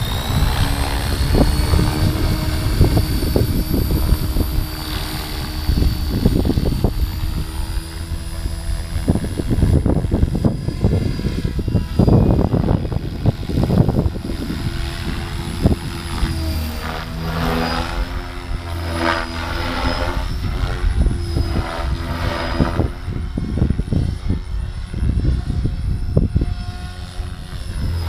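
Electric RC helicopter's brushless motor and rotor head (Scorpion HKIII-4035 500kv on 12S) finishing its spool-up: a rising whine that levels off within the first couple of seconds. It holds steady, then wavers in pitch as the helicopter flies, along with the rotor blades' whoosh. A heavy, uneven low rumble of wind buffeting the microphone runs under it.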